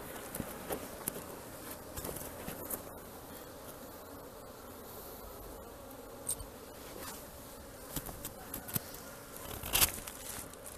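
Honeybees (Apis) buzzing steadily around an opened colony, with scattered clicks and knocks, the loudest about a second before the end.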